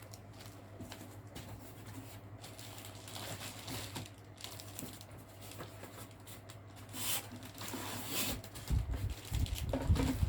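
Packaging being handled while a box is unpacked: a run of light clicks, rustles and crinkles of plastic and cardboard, louder rustling about seven and eight seconds in, and low thumps near the end.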